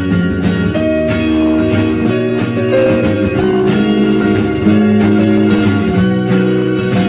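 Background instrumental music led by a plucked guitar, playing steadily.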